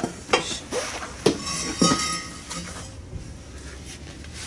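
Stainless steel exhaust pipe clinking and knocking against the car's underside as it is worked into position, a few sharp metallic knocks in the first two seconds, one ringing briefly.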